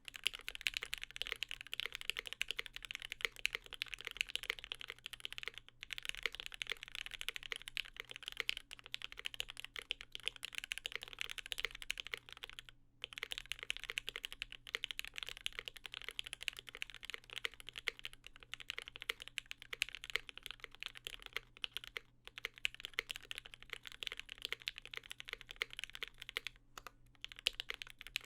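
Continuous fast typing on a custom mechanical keyboard with lubed Gateron Mink linear switches in an aluminium plate under GMK keycaps. The keystrokes come as a dense stream of sharp clacks, broken by a few short pauses.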